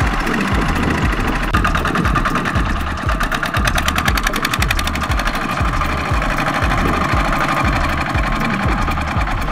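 Kubota RT120 single-cylinder diesel engine of a walk-behind power tiller, running under load in a steady knocking chug while it pulls a loaded trailer through mud.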